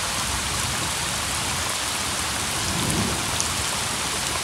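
Torrential thunderstorm rain pouring down steadily, with muddy runoff water rushing across a gravel driveway and scattered clicks of raindrops striking the microphone.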